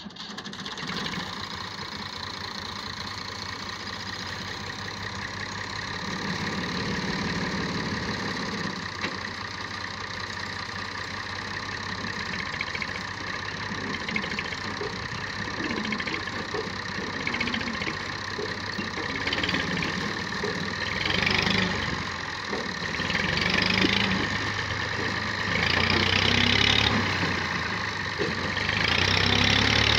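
Farm tractor's diesel engine running steadily under load, then revving up in repeated surges through the second half as it strains to pull a loaded trolley stuck in soft ground.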